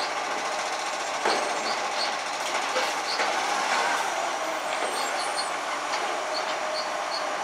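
Iveco Acco side-loader garbage truck running, its hydraulic side arm reaching out and lowering to grab wheelie bins: a steady mechanical rush with a sharp knock about a second in and short high chirps scattered through.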